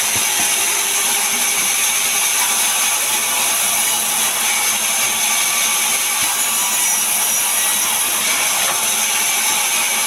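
Large sawmill band saw running steadily while its blade rips a log lengthwise into boards: a constant high hiss with a steady high-pitched tone.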